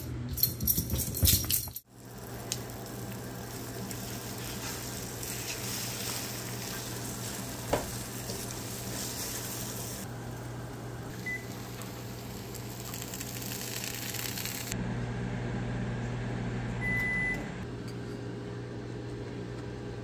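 Kitchen cooking sounds: a steady hum with a sizzling hiss as eggs are stirred in a frying pan. A few loud knocks come in the first two seconds, a sharp click about eight seconds in, and two short high electronic beeps about six seconds apart.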